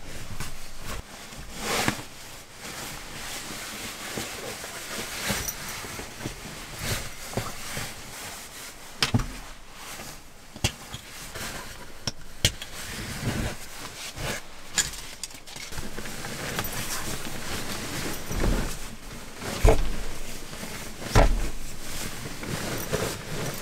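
Fabric rustling as a blanket and a sleeping bag are spread out and smoothed by hand on a bed, with scattered soft knocks and a few louder bumps near the end.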